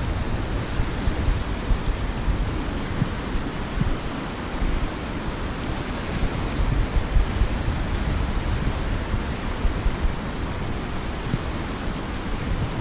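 Steady rushing noise of a flooded, fast-flowing river, with wind buffeting the microphone.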